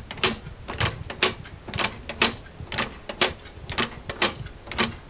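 Spring-driven, all-3D-printed Galileo escapement clock ticking as its pendulum swings: plastic pallets catching the escape wheel, about two sharp ticks a second in an uneven tick-tock rhythm.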